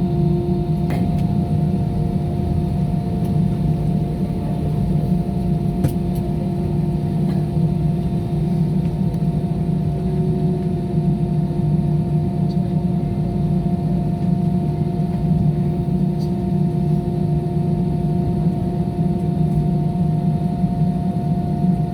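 Steady drone of an airliner on the ground before takeoff, heard from inside the cabin: a low hum with two steady whining tones over it.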